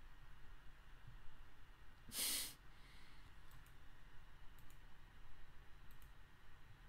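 A person breathing out once, briefly, about two seconds in, over faint scattered clicks.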